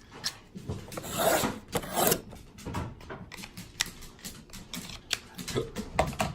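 Sports-card packs and cards being handled on a table: rustling, scraping and a string of light clicks, with louder crinkly rustles about one and two seconds in.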